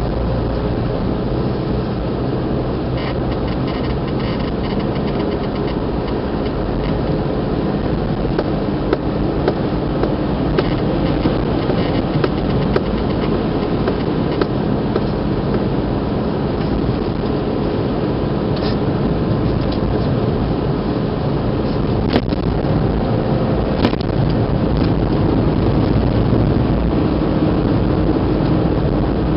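Car engine and tyre noise heard from inside the cabin, a steady rumble while driving along, with a few sharp clicks and knocks, two of them close together about three-quarters of the way through.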